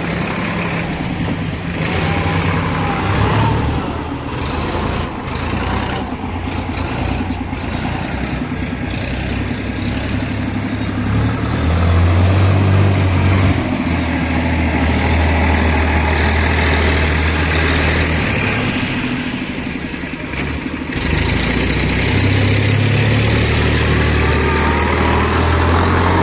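Heavy diesel engine running steadily, revved up and louder twice, about halfway through and again near the end.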